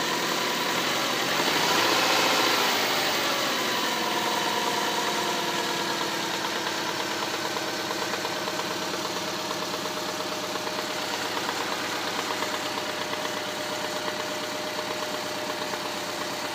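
Subaru Impreza's EJ152 1.5-litre flat-four engine idling, revved once briefly about two seconds in and settling back to idle. A knock comes with it that the owner cannot identify.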